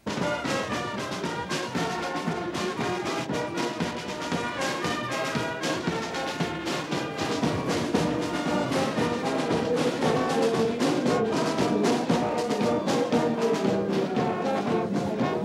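Military brass band of trumpets, trombones and saxophones playing a march over a steady bass-drum beat, cutting in suddenly.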